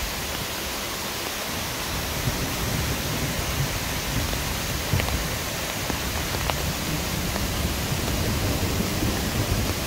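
Steady rushing of a mountain waterfall and stream, the falls running with little water.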